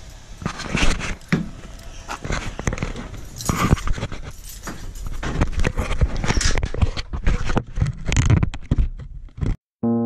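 Handling noise from a camera being carried against the body: rubbing and scraping with many irregular knocks. It cuts off abruptly near the end.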